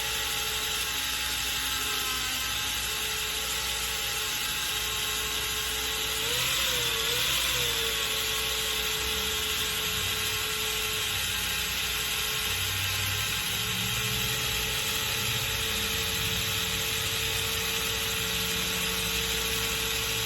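Cordless drill running at low speed, spinning a Norvise bobbin spool as thread winds onto it. The motor whine holds a steady pitch, dipping and rising twice about six to seven seconds in, where it is a little louder.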